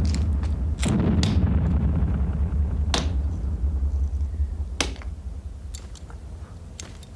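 Sharp cracks at irregular intervals over a steady low rumble: two close together about a second in, then single cracks at about three and five seconds, with the rumble dying away near the end.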